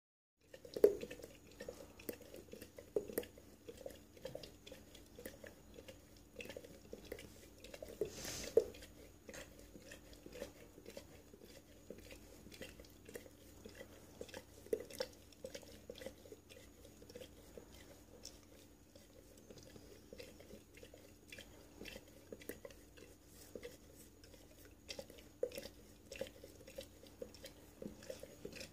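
A dog lapping from a ceramic mug: a steady run of quick, wet tongue clicks, with a louder noisy burst about eight seconds in.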